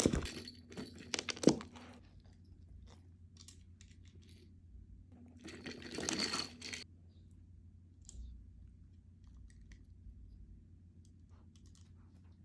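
A dachshund puppy chewing and crunching, with faint scattered crunches and ticks and two short louder bursts of rustling, one at the start and one about halfway through.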